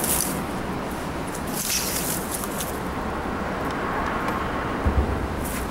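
Steady rushing of water at a creek dam, with a few brief rustles of handling and a soft knock near the end.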